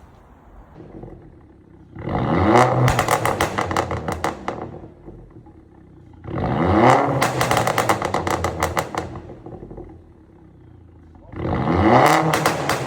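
Mk6 VW Golf 1.4 TSI turbocharged four-cylinder petrol engine idling and blipped three times through a backbox- and resonator-deleted exhaust. Each rev rises and falls away in a rapid string of pops and crackles on the overrun, from a stage 1 map set up for pops and crackles.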